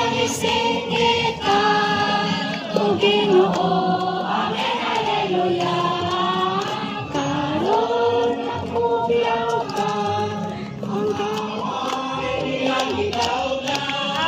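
A choir of voices singing a Christian worship song, with long held notes that glide from one pitch to the next.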